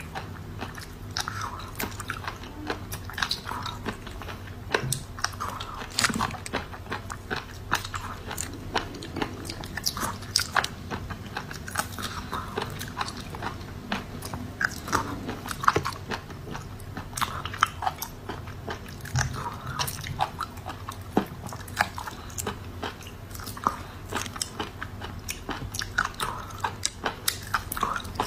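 Close-up eating of raw mud snails: many irregular, sharp crunches and clicks as the thin shells are bitten, with wet chewing between them.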